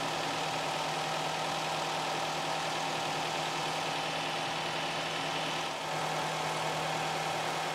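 Nissan QR25 2.5-litre four-cylinder engine idling steadily, with a brief dip about six seconds in. It still runs well, though the owner diagnoses a leaking head gasket letting combustion gas into the coolant.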